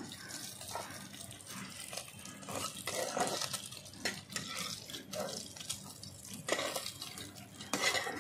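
Small fish sizzling and crackling in hot oil in an iron kadai while a metal spatula scrapes and lifts them out, with a few sharp clinks of the spatula against the pan and the steel plate near the end.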